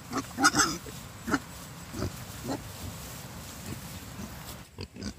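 An animal making a series of short grunting calls. The loudest come in the first second, then more every half second or so, and a quick run of shorter ones comes near the end.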